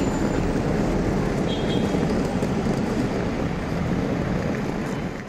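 Steady outdoor traffic noise of cars at a roadside curb, a continuous low rumble with wind on the microphone, fading out at the very end.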